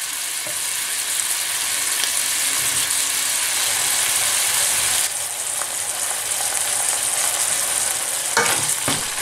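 Minced beef sizzling in a hot nonstick frying pan, a steady hiss of the meat browning in its own fat. Near the end a wooden spoon scrapes and stirs it in the pan.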